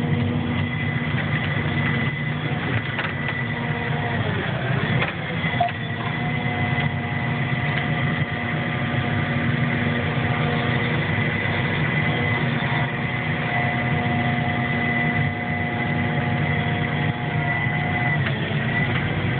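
Vehicle engine idling steadily, a constant hum whose pitch sags briefly and recovers about five seconds in.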